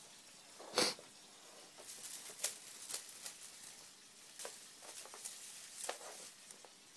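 Light, scattered tapping and clicking of kittens' paws and claws moving about on a wooden floor and wire mesh, with one sharper knock about a second in.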